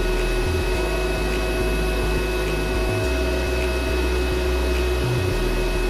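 Cooling fan of a Mitsushi MIT-330 IGBT inverter welding machine running steadily with the machine switched on, a constant whirring hum with a thin steady whine over it.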